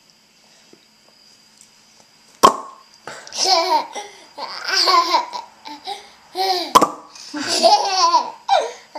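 A baby laughing in bursts of giggles. Each burst follows a sharp pop; there are two pops, about four seconds apart, the first about two and a half seconds in.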